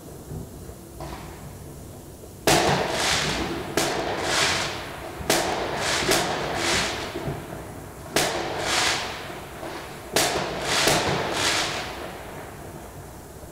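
New Year's fireworks going off: a series of about seven sharp bangs at uneven intervals, starting about two and a half seconds in, each trailing off briefly.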